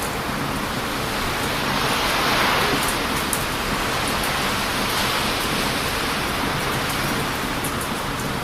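Heavy ocean surf breaking on a beach, a continuous loud wash with one wave swelling to a peak about two seconds in, over strong wind. Sharp crackles and pops from a wood bonfire now and then.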